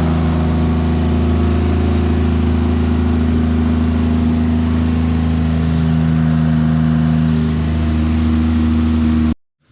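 Toyota 2JZ-GTE inline-six engine in a turbo IS300 running steadily. A slight dip in level about three-quarters of the way through.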